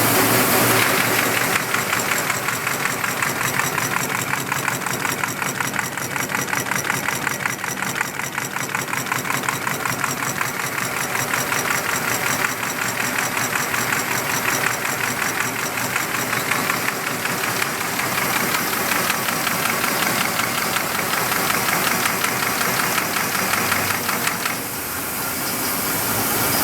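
Heidelberg Stahl B20 paper folding machine running, feeding and folding 8.5 by 11 sheets, with a fast, steady rhythmic clatter.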